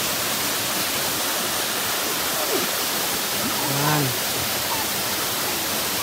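A waterfall running: a steady, even rush of falling water.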